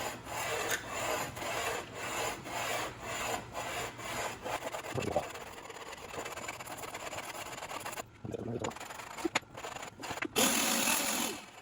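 A block being filed down by hand, with rasping back-and-forth strokes about two a second, to thin it so the starter teeth sit closer to the flywheel. The strokes stop about five seconds in, and a short louder stretch of rushing noise comes near the end.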